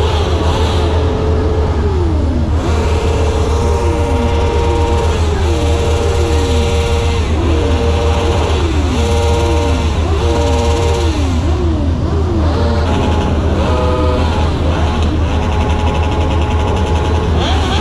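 Car engines going past one after another over a steady low rumble, each engine note holding level and then dropping in pitch, roughly every second or so.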